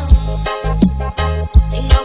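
Reggae music without vocals: a heavy, pulsing bass line under a steady kick drum beat of about two hits a second, with sustained keyboard or guitar chords over it.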